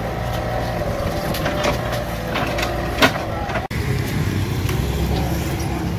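Mini excavator's diesel engine running steadily, with a sharp metallic clank about three seconds in.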